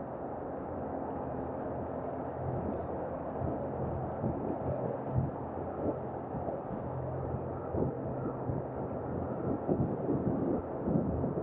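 Outdoor street ambience: a steady low rumble of vehicle traffic with a faint engine hum.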